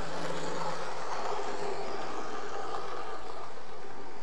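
00-gauge model trains running on a layout: a steady whirr of small motors and wheels on the rails.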